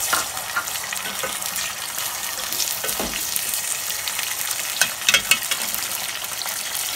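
Raw boneless chicken pieces sizzling in hot oil in an aluminium pot, just put in to fry, stirred with a wooden spoon. A steady sizzle with scattered clicks of the spoon, and a few louder knocks about five seconds in.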